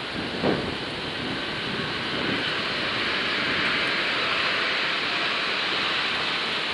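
Boeing 737-700's CFM56-7B jet engines at takeoff power, a steady rushing jet noise that grows louder about three seconds in. A brief thump about half a second in.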